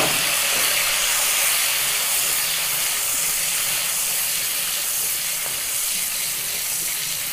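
Chopped garlic, ginger, curry leaves and green chillies sizzling steadily in hot coconut oil in a pan.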